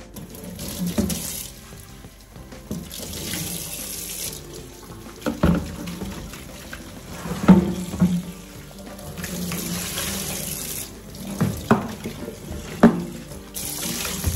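Kitchen tap running into the sink as a plastic cutlery tray is rinsed under the stream, the water splashing louder in spells as the tray is moved. Several sharp knocks of the plastic tray against the sink stand out as the loudest sounds, about halfway through and near the end.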